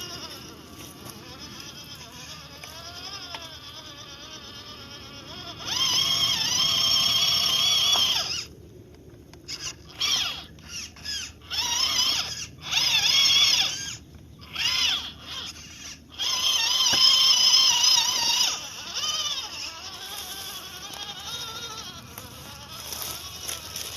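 MN99S 1/12-scale Land Rover Defender RC crawler's small electric motor and gearbox whining under throttle, its pitch wavering with speed. It comes in bursts: one long run about six seconds in, then a string of short stop-start blips, then another long run.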